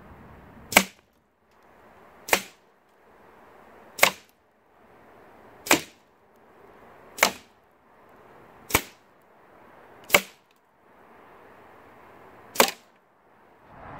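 Edgun Leshiy 2 .22 semi-auto PCP air rifle firing eight shots, one a second and a half or so apart, with a slightly longer pause before the last. Each shot is a single sharp crack.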